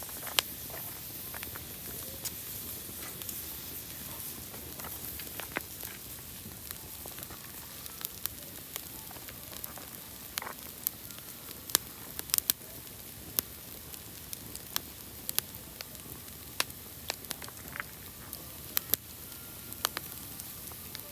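Campfire burning: a steady hiss with sharp crackles and pops from the burning wood, coming more often in the second half.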